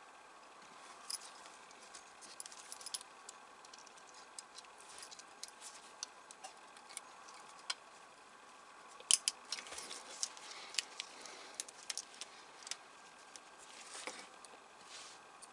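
Small precision screwdriver and tiny screws clicking and ticking against plastic model parts as the screws are picked up and driven in. The clicks are faint and scattered, thickest in a cluster about nine seconds in.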